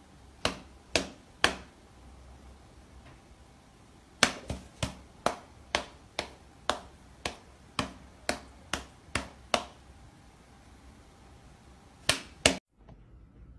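A series of sharp taps or slaps, about two a second: three near the start, a longer run of about a dozen in the middle, and two close together near the end.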